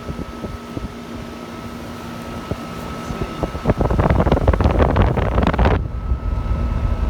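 Footsteps and handling noise while walking. From about four seconds in, a loud low rumble of wind buffeting the microphone, with scattered knocks.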